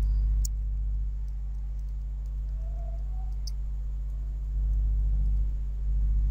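Steady low electrical hum under a scattering of sharp computer keyboard key clicks as text is typed.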